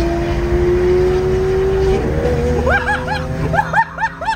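Lamborghini Aventador's V12 engine droning under acceleration, its pitch climbing slowly for about two seconds. Over the engine, from about halfway in, comes a quick run of short high-pitched whoops.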